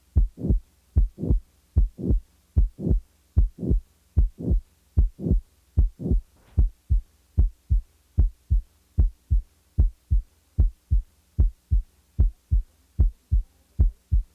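Heart sounds in a steady lub-dub rhythm at about 75 beats a minute, with a late systolic murmur that runs up to the second heart sound. Such a murmur is typical of mitral valve prolapse and is usually high-pitched and blowing. About halfway through, the murmur drops out and leaves clean first and second heart sounds over a faint steady hum.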